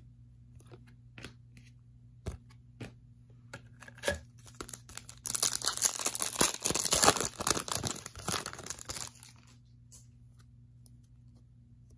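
A trading-card pack wrapper being torn open and crinkled in the hands for about four seconds in the middle, with light clicks of cards being handled before it.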